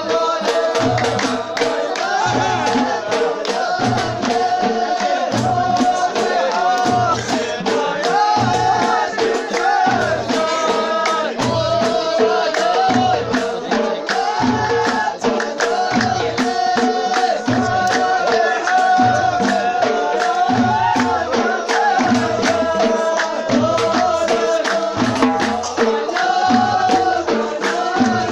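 Folk music: a sung melody over a steady low drum beat about once a second, with dense rattling, clapping-like percussion.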